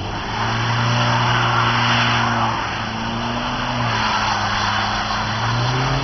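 Audi A4 1.9 TDI quattro's four-cylinder turbodiesel engine held at revs while the car slides in circles on snow, its pitch stepping down and back up and rising near the end. Spinning tyres hiss through the snow over the engine.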